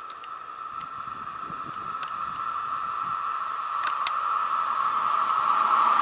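Approaching electric passenger train hauled by a Škoda class 380 locomotive, growing steadily louder, with a steady high whine and a few faint clicks.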